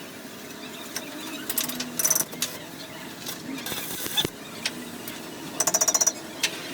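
Bursts of rapid metallic clattering in a metalworking shop, each a quick run of strikes with a ringing tone, once about two seconds in and again near the end, with a short hiss in between.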